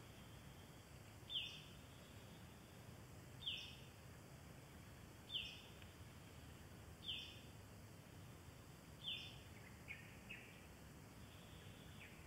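A bird calling five times, about every two seconds, each call a short high note sliding down in pitch, with a few fainter short notes after the last one.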